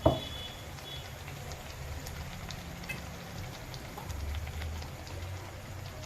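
Batter-coated potato slices deep-frying in hot oil, with light scattered crackling and popping over a low steady hum. A sharp knock sounds right at the start.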